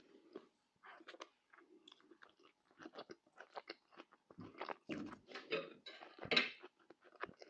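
A person chewing food close to the microphone: a run of short, crunchy, clicking mouth sounds that get louder and busier about halfway through.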